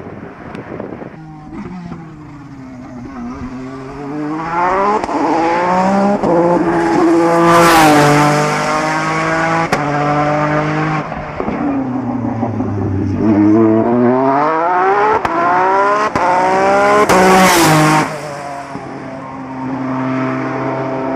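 Peugeot 208 T16 Pikes Peak's twin-turbo V6 accelerating hard uphill, its pitch climbing and dropping back with each quick upshift. It is quieter at first, then passes loudest twice, about 8 and 17 seconds in.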